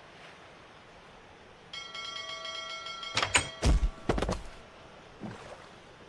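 Cartoon sound effects: a bright chime of several held ringing tones starts about two seconds in, then a quick run of heavy thunks and knocks, the loudest sounds here, followed by two softer knocks, over a faint sea-and-wind hiss.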